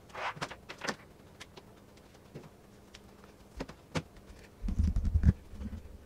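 An HDMI cable being handled and plugged in, sped up four times: scattered short clicks and knocks, with a brief low rumble about five seconds in.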